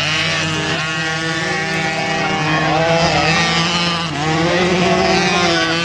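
Several small peewee dirt bike engines racing together, their overlapping pitches revving up and dropping back as the riders accelerate and shift.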